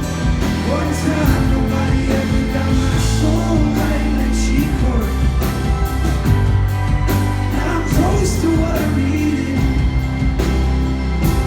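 Live band music with drums keeping a steady beat over sustained bass, and wordless singing weaving over it.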